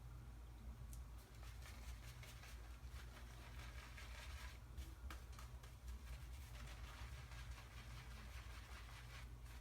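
Faint, rapid swishing and crackling of a badger shaving brush working tallow-based shaving soap into lather, over a low steady hum.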